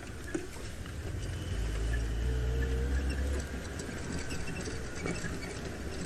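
Open safari game-drive vehicle driving along a dirt track: a low engine rumble that swells for a couple of seconds in the middle, with light rattles and knocks from the vehicle.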